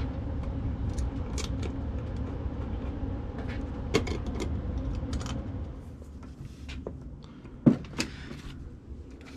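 Small clicks and taps of a duplex electrical outlet and its cords being handled at the box, over a steady low rumble that drops away about six seconds in. Two sharp knocks near the end.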